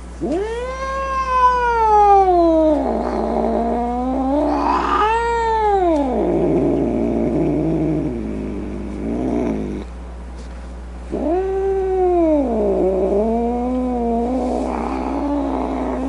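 Domestic cat yowling: long drawn-out calls that rise and then fall in pitch, several in a row, with a brief break about ten seconds in.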